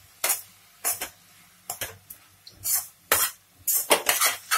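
Spoon scraping and knocking against a nonstick kadhai while carrot halwa is stirred: a run of short, sharp scrapes at uneven intervals, coming faster near the end.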